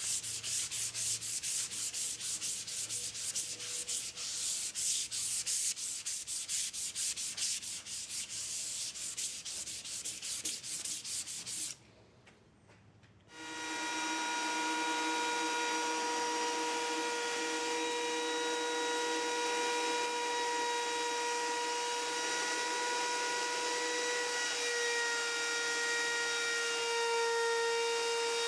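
For about the first twelve seconds, a hand tool is rubbed rapidly back and forth along the edge of a pine board. After a short break, a handheld electric router runs with a steady motor whine, its pitch stepping slightly near the end.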